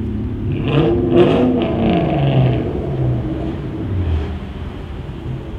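A car engine revs up about a second in, then its pitch slowly falls back over the next few seconds.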